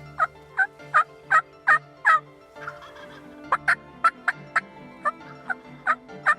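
Turkey yelping: a run of sharp, evenly spaced yelps about three a second, a short pause about halfway, then another run.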